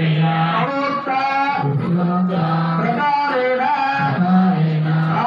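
A man singing a slow devotional melody, each phrase ending on a long held note, with the phrase coming round again about every two and a half seconds.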